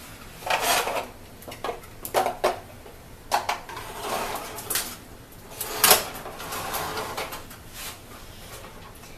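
Disposable aluminium roasting pan with a wire rack being slid back into an electric oven, with oven-rack and pan clanks and rattles. The loudest clank comes about six seconds in.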